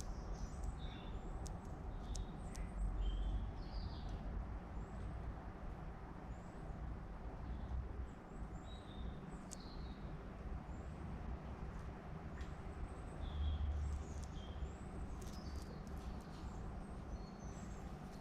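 Small birds chirping in short, high calls scattered throughout, over a steady low outdoor rumble.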